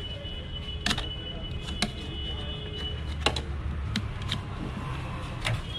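About six sharp clicks and knocks from the wiring-harness connectors and metal case of a BMW engine control module (ECM) as it is unplugged and lifted out, over a steady low rumble.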